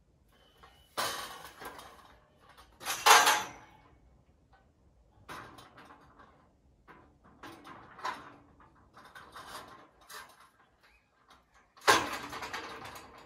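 Metal scaffolding parts being handled and fitted: a series of separate clanks and scraping slides, the loudest about three seconds in and another strong one near the end.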